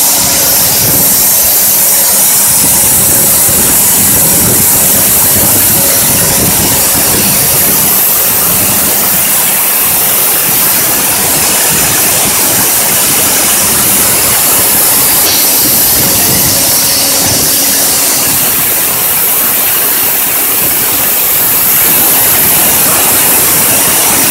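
Cookware inner-polishing machine running: a sisal polishing wheel on an electric motor shaft spinning against the inside of an aluminium pot as the pot turns in its chuck. It makes a loud, steady hiss over the motor's run, with a faint hum that fades in and out.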